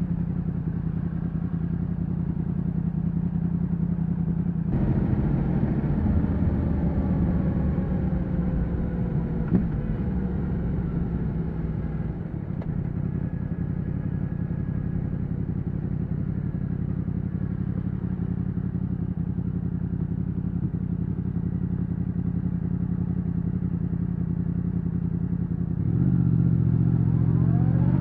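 Yamaha MT-10's crossplane inline-four on its stock exhaust: a steady low engine note that changes about five seconds in as the bike pulls away, then a long even cruise. Near the end it gets louder and rises in pitch as the throttle opens and the bike accelerates.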